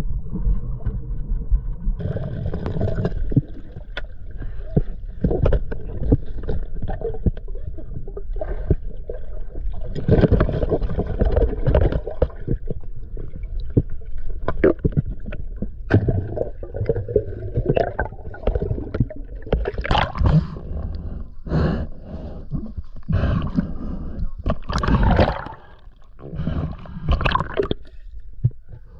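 Water sloshing and gurgling with many sharp knocks and clicks, and heavier splashing surges in the second half.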